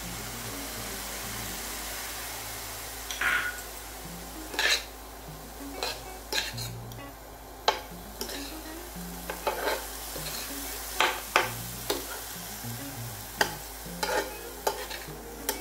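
Chopped vegetables sizzling in a pan while being stirred with a spatula, which scrapes and taps against the pan at irregular moments about once a second.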